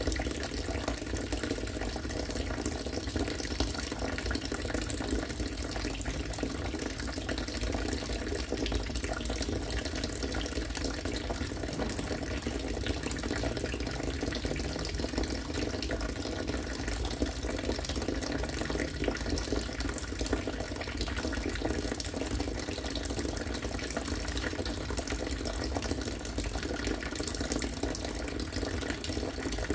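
Harvested rainwater pouring steadily and falling into water, a continuous even splashing rush.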